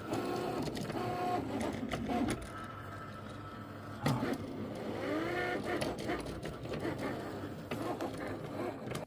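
Cricut cutting machine cutting a vinyl design. Its motors whine in repeated rising and falling glides as the blade carriage and mat shuttle back and forth, with a few clicks along the way.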